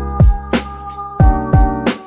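Background music: sustained electric-piano or synth chords over an electronic beat, with deep kick drums that drop in pitch.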